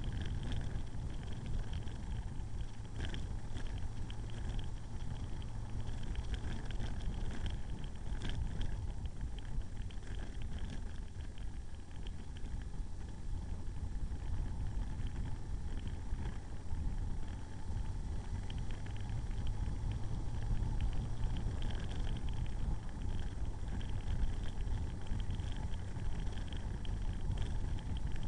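Motorcycle engine running steadily at cruising speed on the move, with no change in pace.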